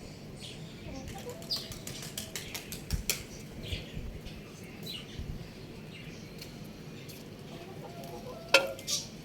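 Young rooster chirping in short high calls, with a quick run of sharp clicks about two and a half to three seconds in and one louder call near the end.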